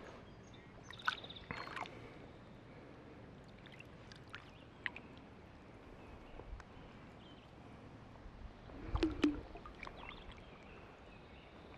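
Faint water splashing and lapping around a hand and a smallmouth bass held in a landing net at the river's surface, with a few small splashes and a louder slosh about nine seconds in.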